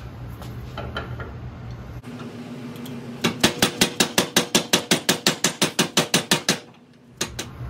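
Rapid hammer blows, about six a second, metal striking a short steel 1/4-inch socket extension used as a drift to drive a stuck handlebar bushing out of a motorcycle's top fork clamp. The strikes ring, start about three seconds in, stop abruptly, and two more follow near the end.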